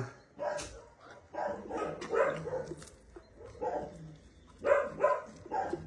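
A dog making about half a dozen short, soft pitched vocal sounds at irregular intervals.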